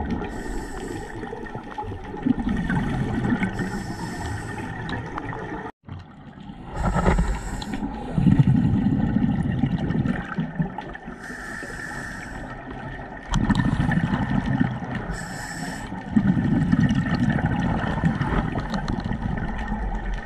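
A scuba diver breathing underwater through a Poseidon Xstream regulator, close to the camera: a hiss with each inhale, then a gurgling rumble of exhaled bubbles, about five breaths in a row.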